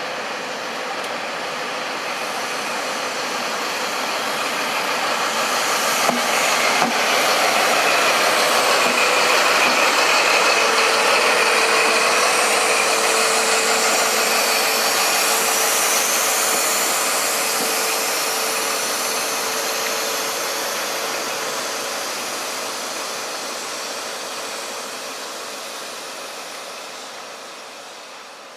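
Class 43 HST power car's diesel engine as the High Speed Train comes past the platform. It grows louder to a peak as the power car goes by, with a steady whine through the middle, then fades as the coaches roll past. Two sharp clicks come about six seconds in.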